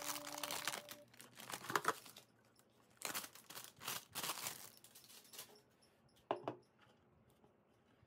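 Clear plastic wrap around a power supply's cable bundle crinkling as gloved hands handle it and pull it off, in about six short bursts.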